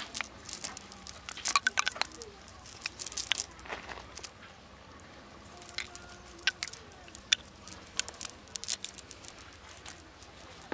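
Plastic sack crinkling and crackling in irregular bursts as it is handled beside freshly caught fish, busiest in the first four seconds and again from about six to nine seconds in.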